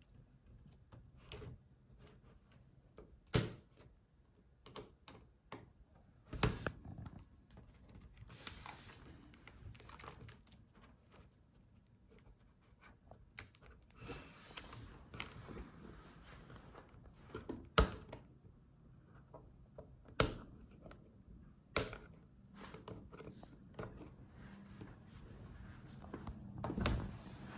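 Plastic front bezel of a laptop display being pried and peeled away from its adhesive by hand: scattered sharp plastic clicks and snaps, with a few short tearing sounds in between.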